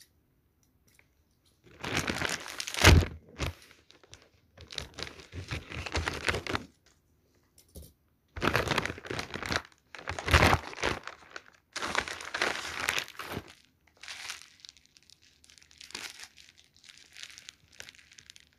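Plastic parcel packaging being cut with scissors and torn open, crinkling and rustling in bursts with short pauses between them. A sharp knock is heard about three seconds in.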